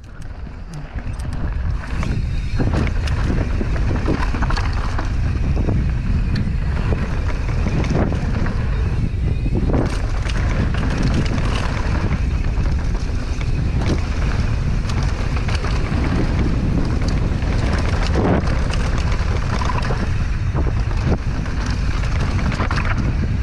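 Mountain bike descending a dry, rocky dirt trail: wind buffeting the action-camera microphone, with tyres crunching over dirt and stones and frequent rattles and knocks from the bike over rough ground. The rumble builds over the first couple of seconds as the bike picks up speed, then holds steady.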